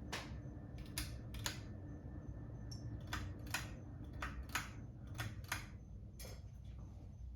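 Ceiling fan running with a steady low hum, overlaid by about a dozen irregular sharp clicks, like taps or ticks, coming at uneven intervals.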